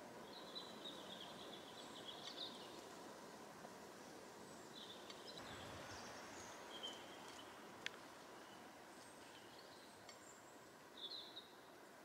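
Faint scattered songbird chirps, short high calls a few seconds apart, over a quiet forest background hiss; a single sharp tick about eight seconds in.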